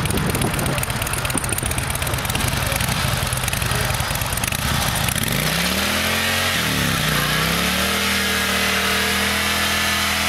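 Harley-Davidson V-twin idling with an uneven rumble. About five seconds in the revs climb, dip briefly and then hold high and steady as the rear tire spins in a reverse burnout, driven through an add-on reverse gear kit.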